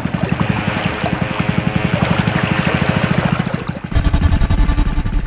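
A small engine running with a fast, even pulse. About four seconds in, the sound changes abruptly to a louder, deeper rumble.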